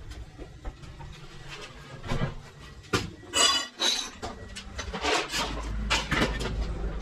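Hand tools clinking, knocking and scraping against hard objects in a run of short irregular sounds, with a louder scrape about three and a half seconds in. A low steady rumble comes in about five seconds in.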